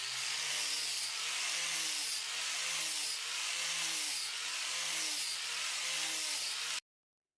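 Steady sanding noise with a faint pulse repeating about once a second; it cuts off suddenly near the end.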